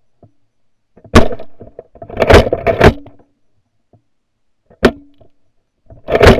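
Pump-action .410 shotgun fired repeatedly, about five or six sharp blasts spread over several seconds with quiet gaps between them.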